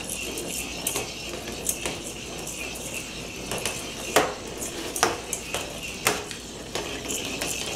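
Motorized 'electric weasel' ball toy whirring steadily as its plastic ball rolls over a ceramic tile floor, with irregular sharp plastic clacks as it knocks about, the loudest about four seconds in.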